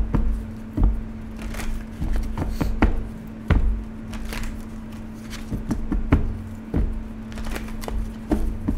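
A deck of tarot cards being shuffled and handled by hand: irregular soft taps, snaps and knocks of the cards, a few a second, over a steady low hum.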